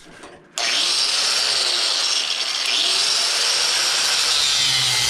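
Angle grinder starting up and cutting through metal, a loud, steady high hiss that begins suddenly about half a second in.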